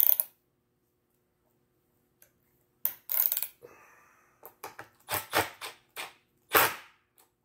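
Small ratchet wrench tightening a nut on a threaded steel rod, clicking in short bursts with pauses, then a run of quick strokes in the last couple of seconds.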